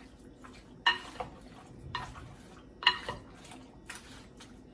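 Wooden spoon stirring chunks of seasoned pork in a glass mixing bowl, clicking against the glass now and then. Two louder knocks, about a second in and just before three seconds, leave the bowl ringing briefly.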